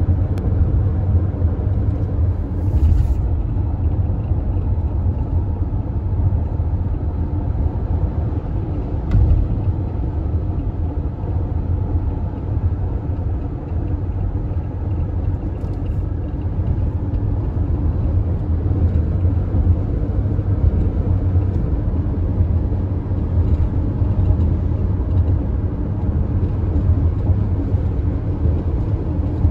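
Steady low rumble of road and engine noise heard from inside a minivan driving along a highway.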